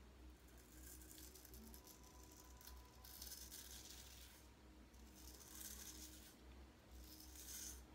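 Faint rasping of a George Butler 6/8 round-point straight razor scraping lathered stubble, in short strokes of about a second each that come a few times in the second half.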